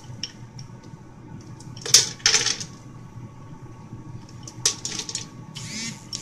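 Small hard pieces of chocolate poured from a bag into a bowl, clattering and rattling in a few short bursts.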